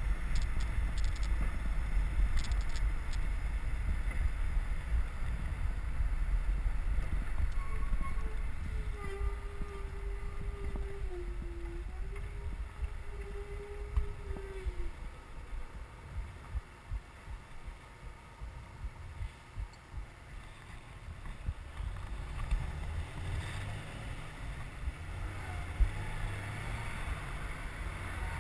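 Wind buffeting the microphone of a bicycle-mounted camera while riding at speed, a low rumble that drops off partway through. A faint steady whine wavers in pitch for several seconds in the middle.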